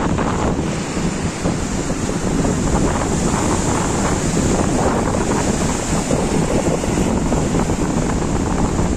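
Storm surf breaking and washing up the beach in a continuous rush, with strong wind buffeting the microphone.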